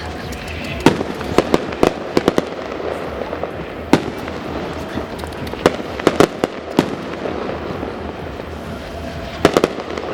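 Fireworks display: sharp bangs and cracks going off irregularly, often in quick clusters of several, over a steady background rumble.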